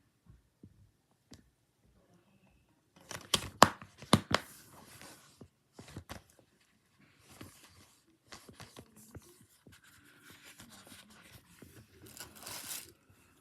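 DVD packaging being torn open and crinkled. It is quiet at first, then sharp crackles come about three seconds in, followed by intermittent softer rustling and one louder crinkle near the end.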